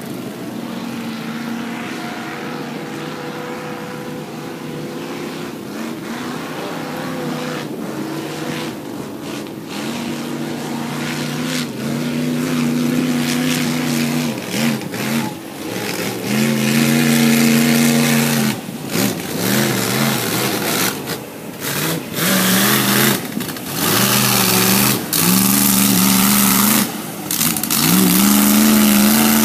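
Off-road vehicle engine revving in repeated surges, rising and falling in pitch, getting louder and more frequent over the second half, with short bursts of noise between the revs.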